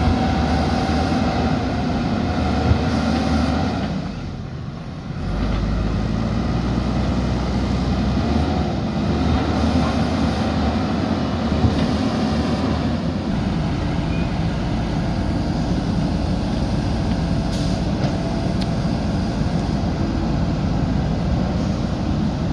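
JCB backhoe loader's diesel engine running steadily under work. The sound dips briefly about four seconds in, then carries on.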